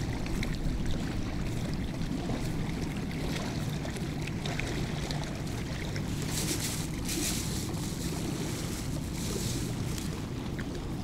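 Strong wind rumbling on the microphone, with choppy water washing against the stony shore. Brief crackling about six to seven seconds in and again near the end.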